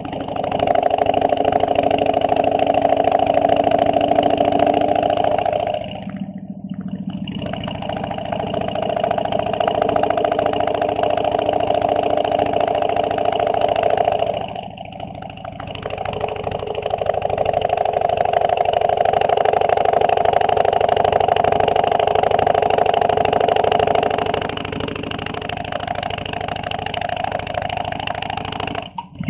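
Harley-Davidson motorcycle's V-twin engine running on the road, with wind and road noise. The engine note dips for about a second twice, around six and fifteen seconds in, and runs quieter near the end.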